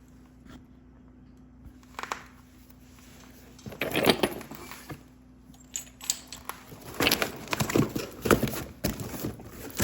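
Hard clacks and knocks of chert stone being handled or struck. There is a single knock about two seconds in, a cluster around four seconds, and irregular knocks in quick succession from about seven seconds on.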